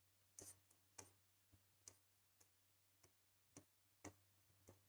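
Near silence with about a dozen faint, irregular clicks of a pen tip tapping on a writing board as numbers and brackets are written, over a faint steady low hum.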